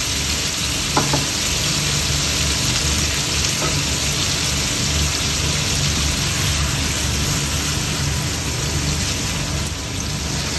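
Chicken strips and sliced onions sizzling steadily in butter in a frying pan over medium heat, with a low steady hum underneath.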